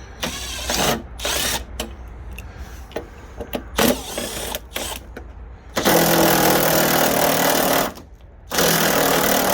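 Cordless power tool with a 10 mm socket spinning out two headlight mounting bolts, in two runs of about two seconds each: the first begins about six seconds in, the second about a second and a half later. Before them come a few light clicks and knocks as the tool is fitted to the bolt.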